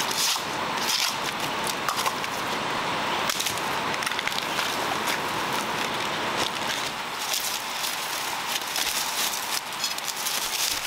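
Dry bamboo leaves and bamboo-shoot husks crackling and rustling as they are handled and trodden on, in short irregular snaps over a steady background hiss.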